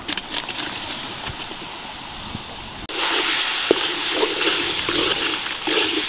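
Snails in their shells sizzling in hot oil in an iron wok as they are tipped in and stirred with a bamboo spatula, with shells clicking and scraping against the pan. The sizzle turns louder about three seconds in.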